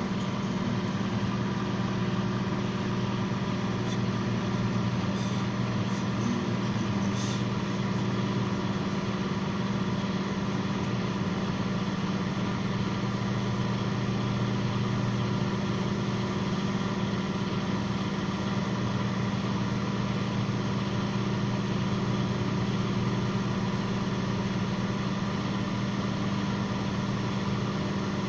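Microwave oven running: a steady, even hum, with a few faint clicks about five to seven seconds in.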